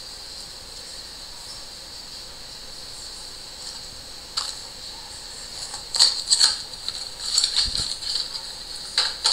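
Printed paper template sheets rustling and sliding on a tabletop as they are shifted into line, in a run of short crinkles starting about four seconds in, with a soft thump in the middle of them.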